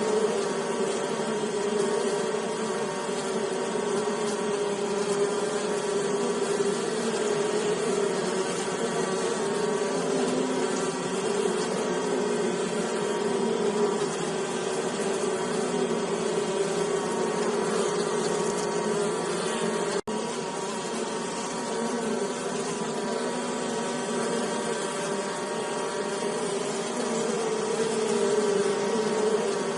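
Honey bees buzzing in a steady, slightly wavering hum, breaking off for an instant about twenty seconds in.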